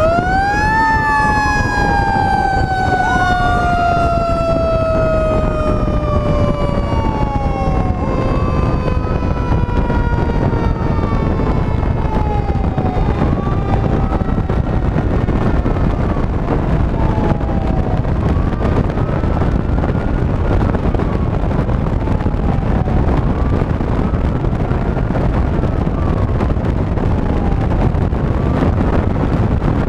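Fire engine sirens over heavy wind and road noise. One siren climbs briefly at the start, then winds down slowly over about a dozen seconds, while a wail rises and falls about every five seconds and fades toward the end.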